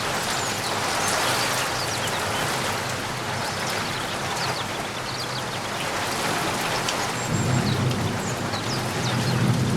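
Steady rain falling and pattering. A low rumble builds in about two-thirds of the way through.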